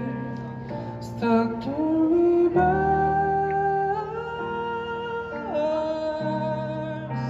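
A singer performing a song with instrumental accompaniment. Long held notes slide up in pitch in the first half and drop near the end, over steady sustained chords.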